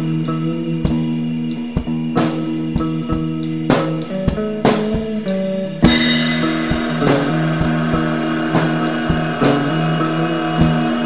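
Psychedelic rock music: guitar over a steady held drone, with a regular drum-kit beat. A cymbal crash about six seconds in, after which the music is fuller.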